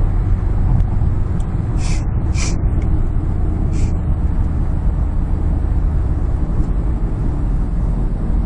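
Steady low road and engine rumble inside a car's cabin while driving at speed, with three brief hisses between about two and four seconds in.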